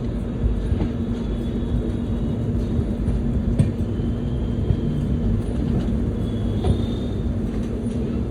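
Indian Railways train running: a steady low rumble with a constant hum, a few scattered clicks, and faint high whines a little past the middle.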